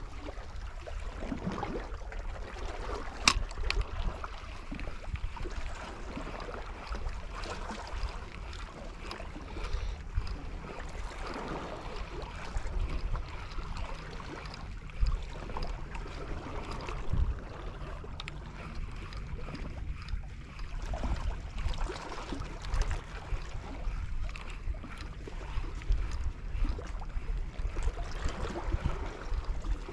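Wind buffeting the microphone over sea washing against rocks, an uneven surging noise with a constant low rumble. A single sharp click about three seconds in.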